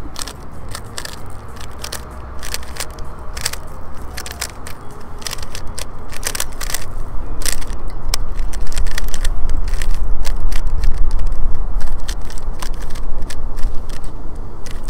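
A loose, drop-damaged Rubik's Cube being turned quickly through a solve: a fast, uneven run of sharp plastic clicks and clacks. A low rumble runs underneath and grows louder about halfway through.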